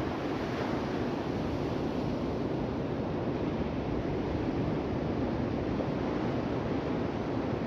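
Steady rush of ocean surf, even throughout with no single wave breaking out above the rest.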